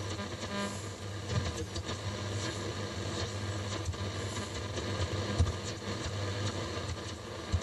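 Static and hiss from the Sony WM-F63 Walkman's AM/FM radio as its tuning wheel is turned between stations, over a steady low hum.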